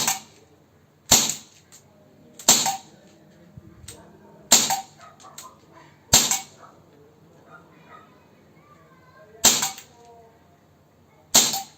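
Gamo PR-776 CO2 air pistol being fired, seven sharp shots about one to three seconds apart, each followed by fainter clicks.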